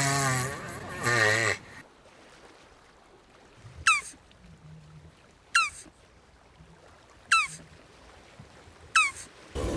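Jabuti tortoise giving a long, wavering bleat-like call, followed by four short, sharp chirps that fall in pitch, evenly spaced about a second and a half apart. Another wavering call begins at the very end.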